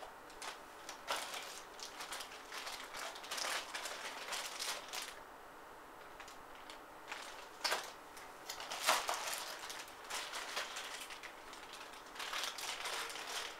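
Unboxing packaging and accessories being handled: irregular crinkling and rustling with small sharp clicks, in several spells with a quieter pause in the middle.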